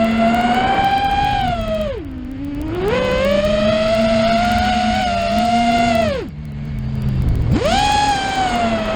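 FPV quadcopter's brushless motors whining, with two sharp drops in pitch and loudness as the throttle is cut, about two seconds in and again about six seconds in, each followed by a quick climb back up as the throttle is raised.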